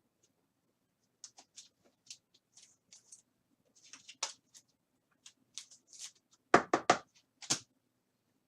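Baseball trading cards and their plastic holders being handled: a string of short, light clicks and scrapes, then a few louder, sharp knocks about six and a half to seven and a half seconds in.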